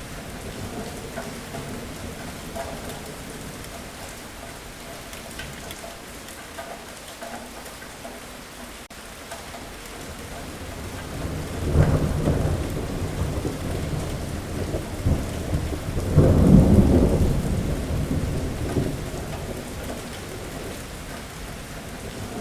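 Steady rain falling, with thunder rumbling twice just past the middle, the second peal the louder, before fading back to the rain.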